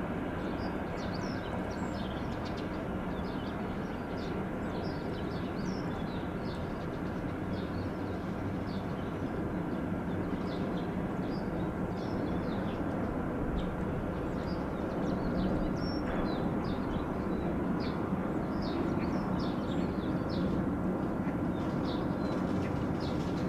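Wagons of a mixed freight train rolling along the rails, a steady rumble growing slightly louder in the second half. Birds chirp briefly throughout.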